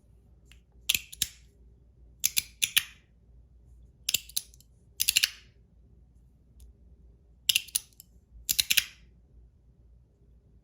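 Ant Design S-Nano zirconium magnetic fidget slider clacking as its plates are slid and snapped back and forth by the magnets. Six bursts of sharp clicks, each a few quick clicks together, come about a second or so apart.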